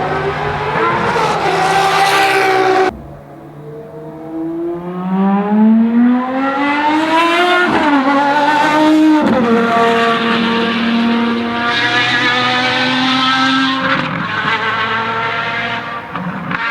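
Ferrari FXX Evoluzione's V12 engine running at speed on track. The loud engine note cuts off abruptly about three seconds in and comes back quietly. It then climbs in pitch with rising revs, broken by two quick gear changes around the eighth and ninth seconds, and holds a high steady note to the end.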